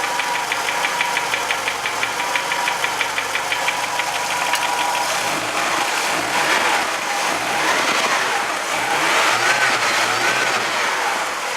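VW Jetta Mk2 1.8-litre engine running cold with a fast, even knocking. In the second half the revs rise and fall a couple of times. The owner calls the knock strange and gives no cause.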